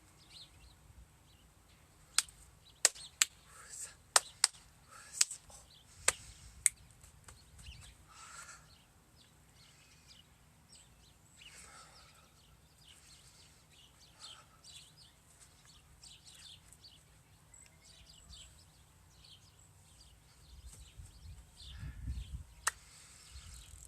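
A quick run of about eight sharp clicks in the first several seconds, over a faint outdoor background with scattered soft sounds. A low rumble rises near the end.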